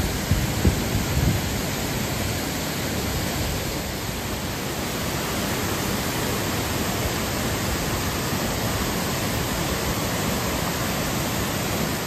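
Waterfall rushing steadily, with a few low thumps in the first second and a half.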